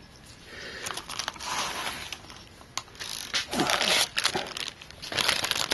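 Clear zip-lock plastic bag crinkling as it is handled and lifted out of a cardboard box, in irregular rustling bursts with a few sharp clicks, loudest in the second half.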